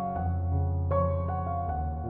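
Instrumental background music: a gentle melody over a sustained bass, with new notes about every half second.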